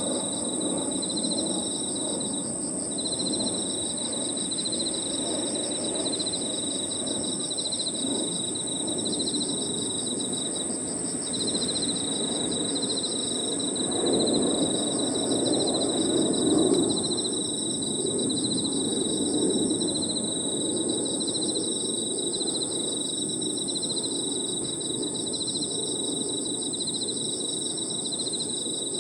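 Chorus of crickets and other night insects: one continuous high-pitched trill, with a lower chirping that pulses about twice a second. Under them runs a low background rumble that swells for a few seconds around the middle.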